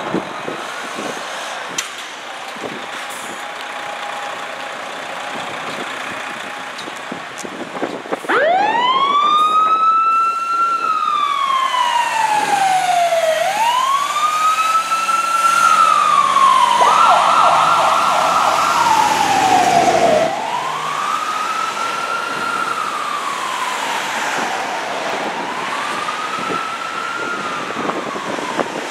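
Fire engine setting off on an emergency call: first the diesel engine and street noise, then about eight seconds in the siren winds up and wails in slow cycles, each rising quickly and falling away slowly, with a couple of seconds of rapid warbling about halfway. The siren grows quieter over the last several seconds.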